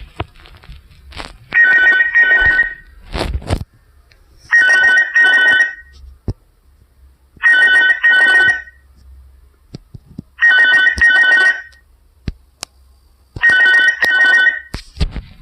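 Mobile phone ringtone in a telephone-ring style, played through an Icemobile phone's speaker: a double ring repeating about every three seconds, five times, with a few short clicks between rings.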